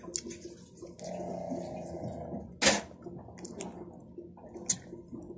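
Wet mouth sounds of someone chewing a soft jelly lolly: small smacks and clicks, with a short steady hum, and one sharp smack near the middle that is the loudest sound.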